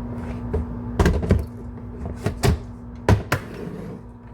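Kitchen objects knocking and clattering as they are handled: about six sharp knocks, loosely in pairs, over a steady low hum.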